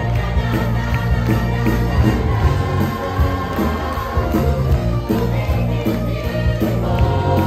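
Musical theatre cast singing together over instrumental backing with a steady beat, heard live from the auditorium.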